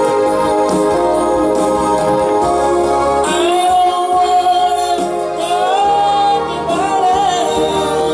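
A man singing a slow song into a microphone over backing music, holding long notes with a slight vibrato.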